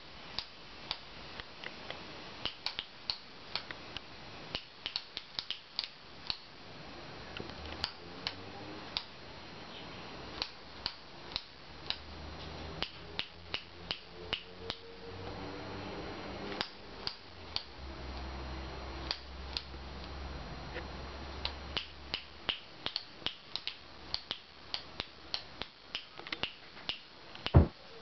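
Male Eclectus parrot making sharp snapping clicks like finger snaps, a few a second in irregular runs. One loud knock near the end.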